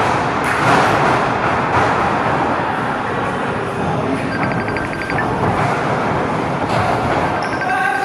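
Crowd of spectators chattering and calling out in a hall around a wrestling ring, with a sharp thud about half a second in.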